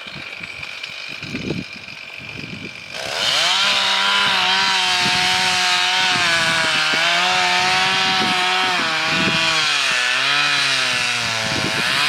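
Chainsaw with a 20-inch bar, quieter for the first three seconds and then opened up to full throttle. It runs steadily at high revs, its pitch sagging and recovering as it comes under load while cutting into a large tree trunk.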